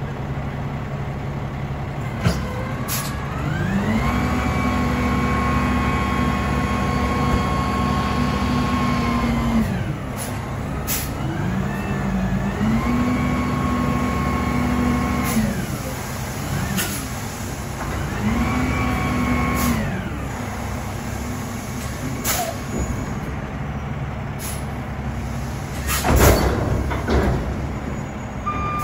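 Dump truck's diesel engine revving up, holding high for a few seconds and dropping back, three times, as it drives the hydraulic hoist that tips the loaded bed. Short sharp pops and a louder burst near the end come between the revs.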